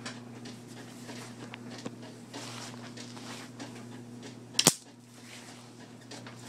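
Homemade high-voltage corona motor running: a steady electrical buzz with faint irregular crackling. One loud sharp snap comes about four and a half seconds in.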